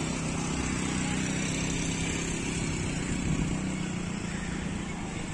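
Heavy diesel bus engine running with a steady low drone, easing off near the end.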